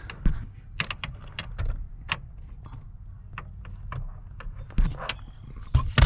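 Hand tools and metal parts being handled, giving irregular small clicks and knocks over a low background rumble.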